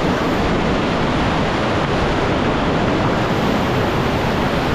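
Whitewater river rapids rushing: a loud, steady wash of fast-moving water with no breaks.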